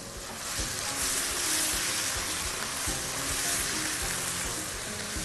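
Crumbled sausage meat sizzling in a hot pan as it is stirred with a silicone spatula, the sizzle growing louder about half a second in. Background music with a steady beat plays underneath.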